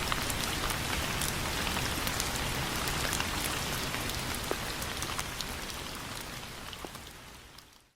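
Steady rain with scattered individual drops pattering, fading out over the last few seconds.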